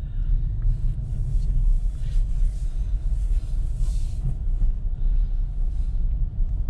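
Steady low rumble of a car being driven, with engine and road noise heard from inside the cabin.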